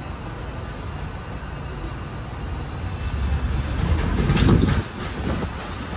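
Shanghai Metro type 07A02 electric train running, heard from the front of the car: a steady low rumble that grows louder, with a louder stretch of rattling and knocking about four seconds in.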